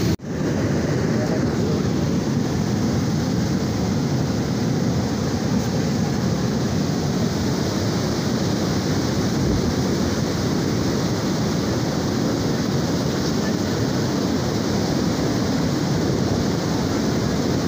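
Steady, heavy rushing of a muddy flash-flood torrent in spate, after a momentary dropout at the very start.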